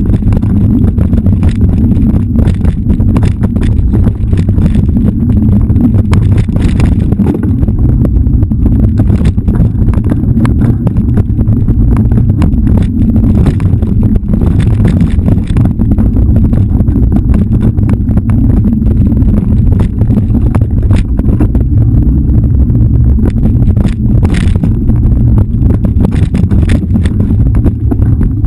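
Mountain bike riding fast over a dirt singletrack: a loud, steady low rumble of wind on the microphone and tyres on dirt, with frequent sharp clicks and rattles from the bike over the rough trail.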